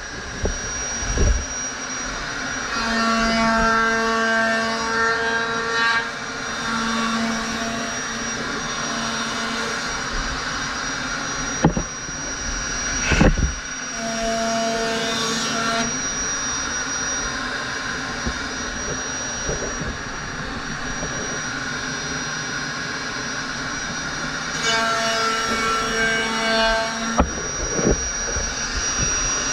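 Handheld router running steadily with a high motor whine as it is pushed along the rail of a surfboard profile jig, cutting the blank. A lower hum from the cut comes and goes in several stretches, with a couple of short knocks.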